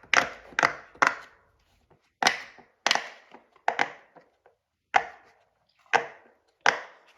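Silicone pop it fidget toy, a square one, having its bubbles pressed through one after another: a string of sharp pops about every half second, with short pauses.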